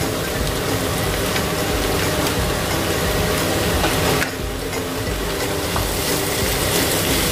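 Diced beef and onions sizzling in a frying pan as a wooden spoon stirs them, with scattered scrapes and clicks of the spoon. Underneath runs the steady hum of a kitchen range-hood extractor fan.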